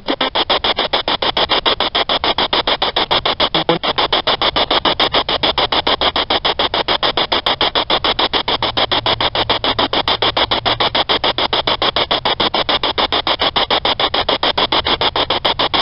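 Ghost-hunting 'spirit box' radio scanner sweeping through stations: a rapid, even chop of static pulses, played through a small speaker.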